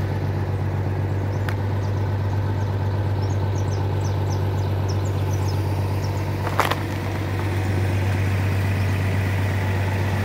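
Vehicle engine idling steadily, with a thin click about a second and a half in and a single sharp knock about six and a half seconds in.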